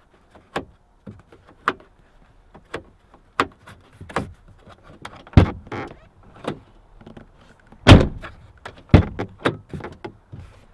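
Newly replaced inside door handle on a 2000 Toyota Camry driver's door being tested: a series of sharp clicks as the handle is worked and the latch releases, and heavier thuds of the door shutting, the loudest about five and a half and eight seconds in.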